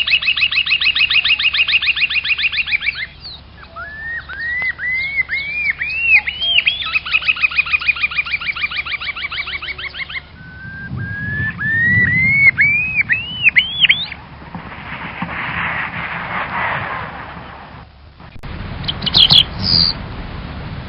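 A bird singing. It alternates fast trills of repeated notes with series of short arched whistles that step up in pitch. After a hissy pause, a few short high calls come near the end.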